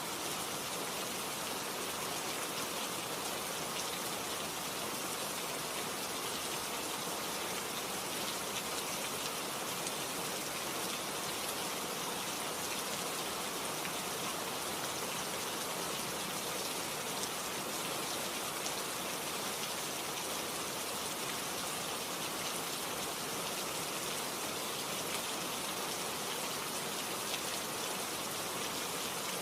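Steady rain falling, an even hiss with fine drops pattering on a surface, unchanging throughout.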